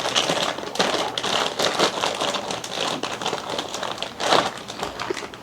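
Slime being squeezed and worked by hand close to the microphone: a dense, irregular run of crackling and popping.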